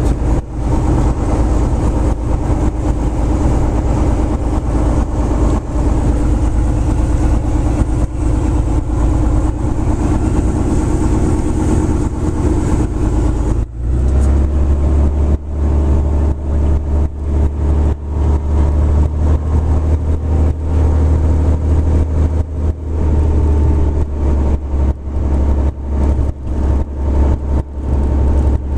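Six-cylinder piston aircraft engine of a Lancair Legacy running at low taxi power, around 1,000 RPM, with the propeller turning, heard from inside the cockpit. The engine note changes abruptly about halfway through, then runs steadily again.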